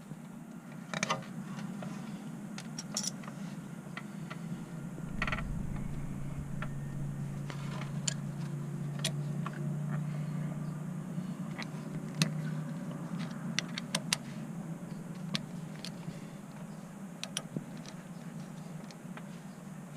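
Scattered metallic clicks and clinks of a brake-line flaring tool being worked and handled as the pipe end is compressed into a flare, over a steady low hum that grows louder for several seconds in the middle.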